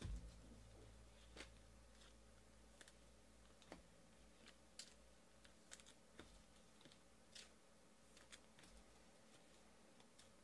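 Near silence: quiet room tone with a soft thump at the very start, then a scattering of faint, irregular light clicks and taps.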